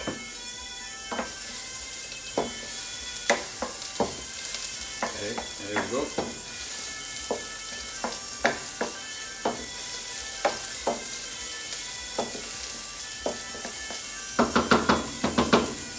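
Chopped garlic sizzling in oil in a stainless steel sauté pan, stirred with a wooden spoon that scrapes and knocks against the pan now and then. Near the end comes a quick run of louder knocks.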